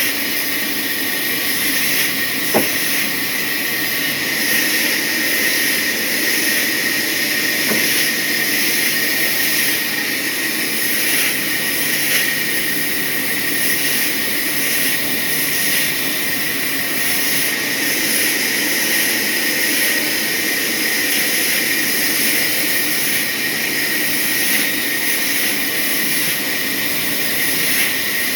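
Sawmill saw running steadily through a hardwood log, a continuous high whine over hiss. One sharp click about two and a half seconds in.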